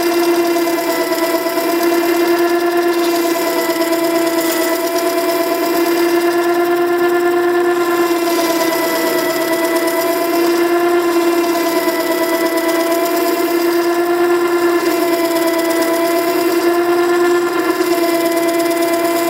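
Makita 9820 electric water stone running with a steady hum while a chisel is ground freehand on its coarse wet wheel, the steel scraping against the stone under a hiss throughout.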